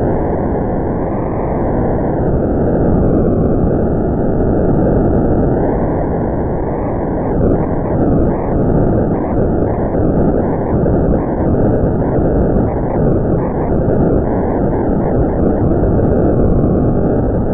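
DIN Is Noise software synthesizer's noise voice: a loud, steady band of filtered hiss whose top edge shifts up and down in pitch. From about 7 seconds in until near the end it flutters rapidly.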